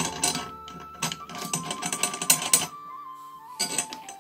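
Light metallic clicks and taps of steel drum tension rods being fitted through a tom's hoop and turned into the lugs by hand, over a thin, high melody of background music.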